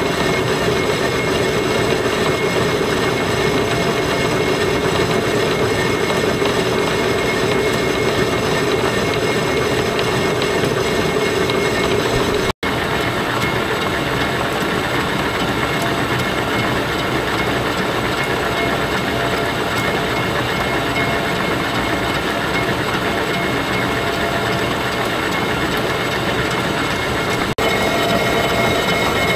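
Defiance horizontal boring mill running a 5-inch, 8-insert carbide face mill through a facing cut: a steady, loud machining noise with a few steady tones in it. The sound breaks off for an instant about twelve seconds in and again near the end.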